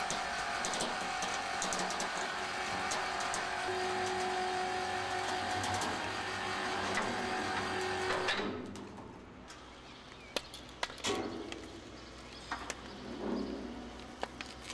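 Machinery running steadily with a hum, then stopping abruptly about eight seconds in; after that, quieter scattered clicks and knocks.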